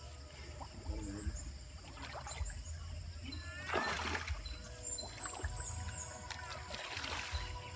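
Muddy pond water sloshing and splashing as a man wades knee-deep through a shallow fishpond and pulls floating plants out by hand, in irregular bursts with a louder splash about four seconds in.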